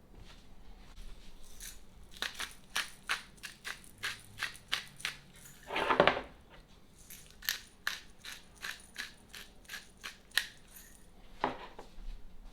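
Irregular, crisp crackling and crunching clicks from food being prepared, with one louder crunch about six seconds in.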